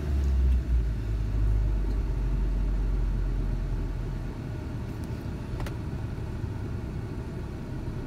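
Ford Ranger engine idling warm with the HVAC on, heard from inside the cab. A deep rumble is heavier for the first few seconds and eases about four seconds in.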